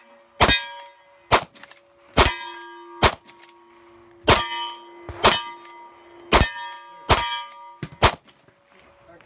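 A rifle fired in a rapid string, nine shots at about one a second. Most shots are followed by the ringing of a struck steel target.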